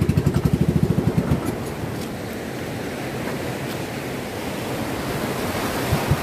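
Outrigger fishing boat's engine running with a rapid pulse that eases off about a second and a half in, leaving the rush of breaking surf and churning water around the hull as the main sound, the engine still faintly putting underneath.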